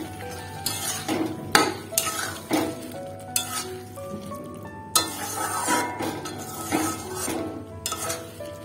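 Metal spatula stirring thick tomato chutney in a metal kadai, scraping and knocking against the pan in irregular strokes about once a second, over a soft sizzle from the cooking.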